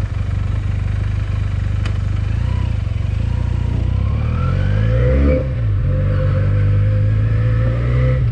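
Benelli TNT300's 300 cc parallel-twin engine pulling away, its pitch rising, then dropping at a gear change about five seconds in before running steadily.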